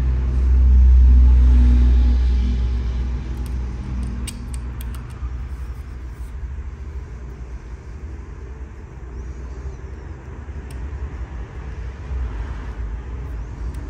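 A low engine-like rumble, loudest in the first few seconds and then fading, with a few light metallic clinks about four to five seconds in from a small tow chain being pulled out of the rear hook of a model road roller.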